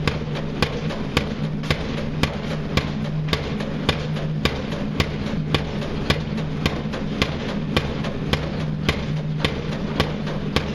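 Pile driver hammer striking a pile in a steady rhythm, a little under two blows a second, over the continuous hum of the rig's engine.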